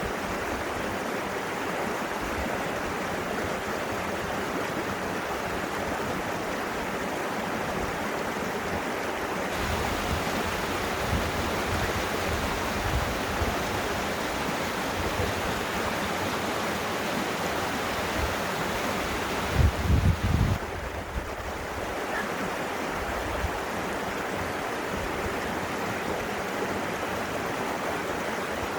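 Rushing water, a steady even hiss. Low rumbling bumps come in the middle, loudest in a brief cluster about two-thirds through.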